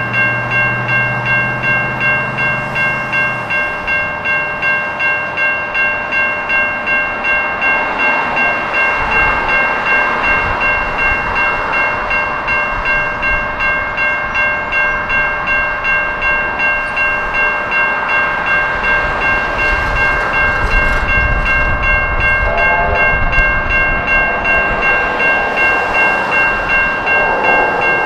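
Safetran Type 3 electronic level-crossing bells ringing in an even, rapid repeating pattern, the warning that the crossing is active. A train's low rumble builds underneath from about a third of the way in.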